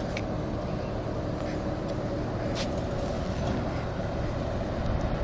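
Steady low rumble of a moving vehicle, with a faint steady hum through the first part and a single brief click about two and a half seconds in.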